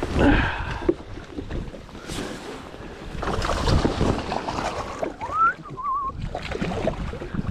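Wind buffeting the microphone over water splashing and sloshing against the side of a bass boat, loudest near the start where a hooked bass thrashes at the surface. About five seconds in, a short rising whine followed by a brief warbling note.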